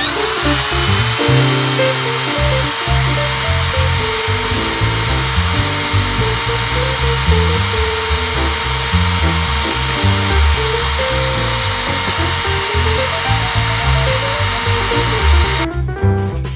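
A vacuum cleaner switching on: its motor whine rises quickly and settles into a steady high whine over a rush of air, then cuts off near the end. Background music with a beat plays underneath.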